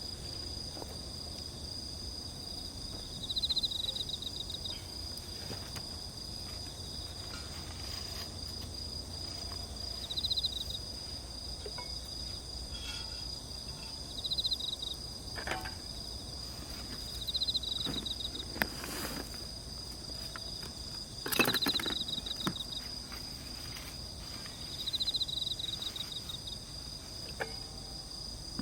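Insects calling: a steady high continuous trill, with a second, pulsed trill about a second long repeating every three to four seconds. A few sharp pops from the campfire stand out, the loudest about two-thirds of the way through.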